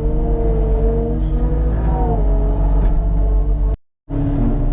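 Diesel engine of a piece of earthmoving equipment running under load, with a whine from the machine that shifts in pitch about two seconds in. The sound cuts out completely for a moment near the end, then returns.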